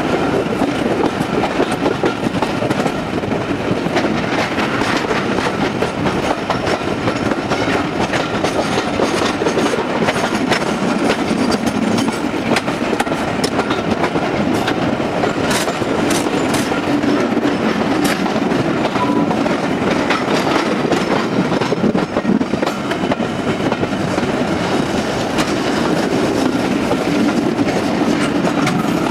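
A train running along the track with a steady rumble, its wheels clicking over the rail joints.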